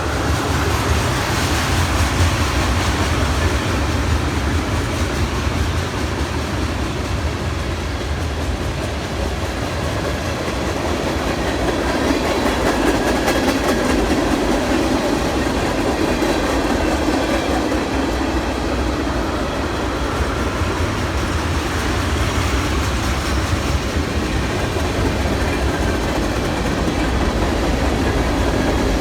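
Freight cars of a BNSF manifest train rolling past, with a loud, steady rumble of steel wheels on the rails.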